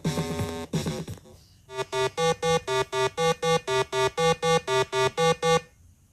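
Background music: a synthesizer keyboard figure of short repeated notes, about four a second, alternating between two pitches. It stops suddenly near the end.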